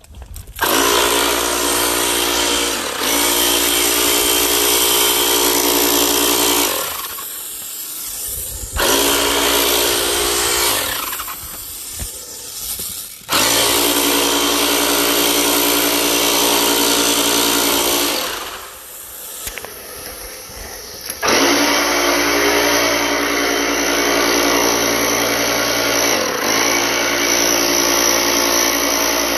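Small electric motor of a disinfectant sprayer running in runs of several seconds, switching on and off four times: a steady hum with a rushing hiss of spray.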